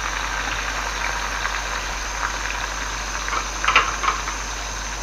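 Thinly sliced onions deep-frying in a wok of hot oil: a steady sizzle with small scattered crackles, and a brief louder crackle about four seconds in.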